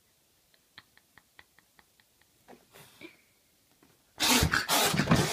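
Two pets squaring off: faint quick ticks, about five a second, for a couple of seconds, then about four seconds in a loud, harsh animal outburst lasting about a second as one lunges at the other.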